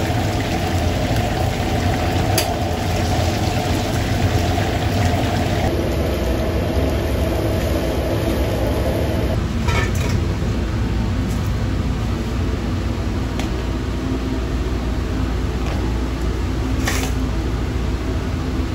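Steady roar of a high-pressure gas wok burner and kitchen extractor, with hot oil sizzling as battered fish deep-fries in the wok. A few sharp metal clinks from the wire strainer and steel bowl, about two seconds in, around ten seconds in and near the end.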